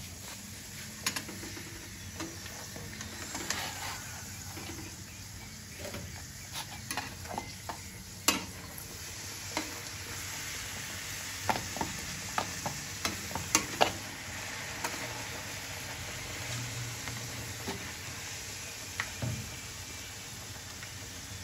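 Puris deep-frying in hot oil in a metal kadhai: a steady sizzle, broken by sharp clicks and scrapes of a metal spatula against the pan, most of them around the middle.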